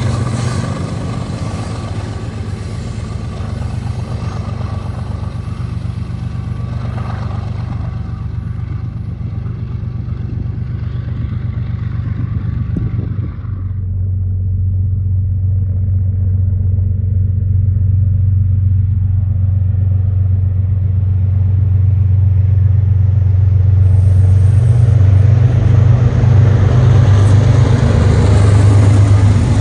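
BNSF diesel locomotives under power: a steady low engine drone, with rail and wheel noise while a locomotive passes close in the first half. After an abrupt change about 14 s in, the drone of the lead locomotives on an approaching double-stack freight train grows steadily louder.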